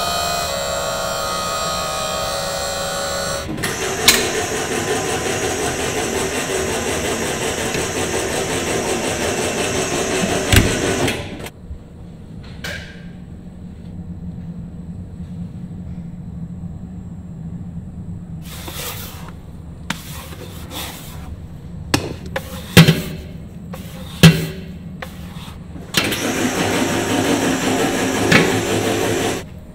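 Food-factory production machinery running loudly, stopping after about eleven seconds and starting again near the end, with several sharp metal knocks and clatters in the quieter stretch between.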